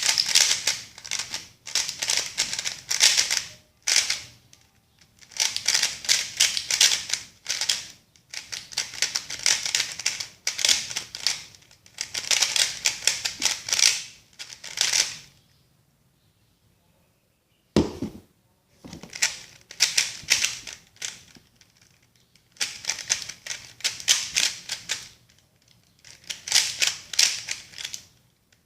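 GAN 356 Air S plastic speed cube being turned fast: rapid clicking and clacking of the layers in bursts of a few seconds with short pauses between. There is a single low thud about two-thirds of the way through.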